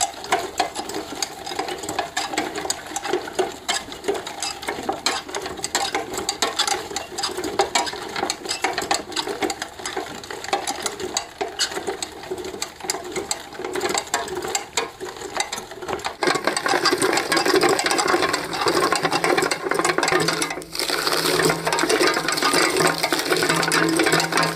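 A machine running with a dense, rapid clattering rattle; about two-thirds of the way through it gets louder and a low steady hum joins in.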